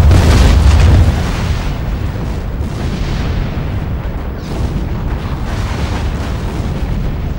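Artillery shell explosions: one loud blast with a deep rumble in the first second, then a continuous rumbling of further, more distant shell bursts.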